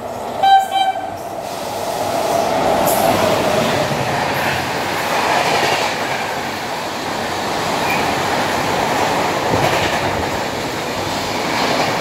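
Express passenger train sounding a short horn blast about half a second in, then running through the station at speed with a steady rumble and rush of wheels on rails as the coaches pass.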